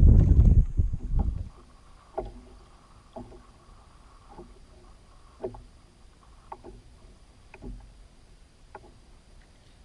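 Wind buffeting the microphone on a fishing kayak, dying away about a second and a half in. Then light, irregular knocks and taps on the kayak, roughly one a second, with water lapping faintly.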